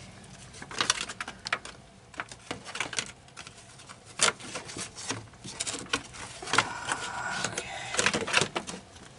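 Hard plastic car trim panels being handled and fitted into place: irregular clicks, knocks and rattles of plastic on plastic, with a brief scraping squeak about seven seconds in.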